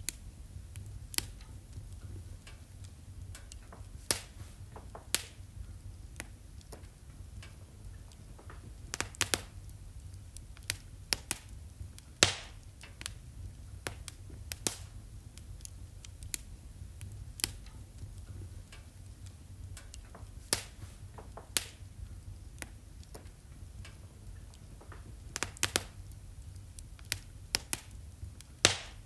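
Wood fire in a fireplace crackling, with sharp irregular pops, some single and some in quick clusters, over a low steady rumble.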